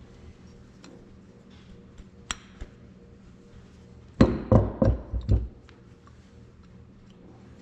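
Metal knocking as a hydraulic valve spool with new O-rings is worked into its bore in a cast-iron Cessna remote valve body: two light clicks, then about five heavy knocks in quick succession a little past halfway.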